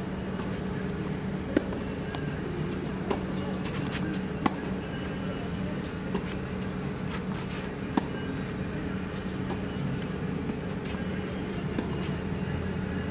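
Tennis rackets striking a ball in a rally: single sharp pops, three about a second and a half apart, then a few more spaced further apart, over a steady low hum.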